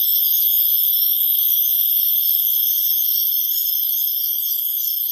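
A steady, loud, high-pitched drone of forest insects, easing slightly near the end.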